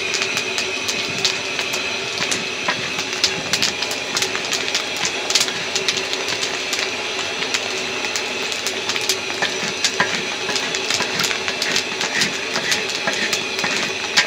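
Popcorn kernels popping in a steel kettle corn kettle, with scattered sharp pops all through. Underneath are the wooden stirring paddle working the kernels along the bottom and a steady hum from the machine.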